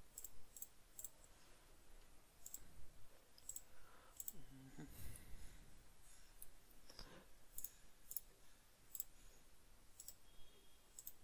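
Faint computer mouse clicks at irregular intervals, single and in quick pairs.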